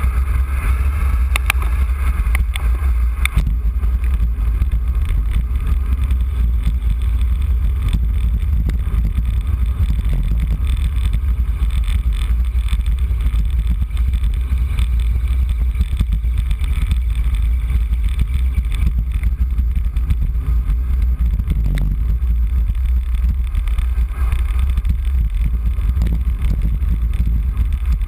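Wind buffeting a bike-mounted camera's microphone on a fast road-bike descent: a loud, steady low rumble, with a fainter hiss of tyres on wet asphalt.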